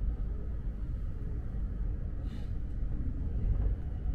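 Subway train running: a steady low rumble, with a brief hiss about two seconds in.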